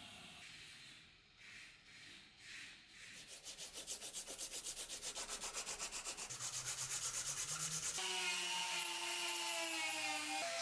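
Sandpaper rubbed back and forth over a wooden knife handle clamped in a vise: a few slow strokes, then quick, even strokes several a second. About eight seconds in, a small power tool starts whining.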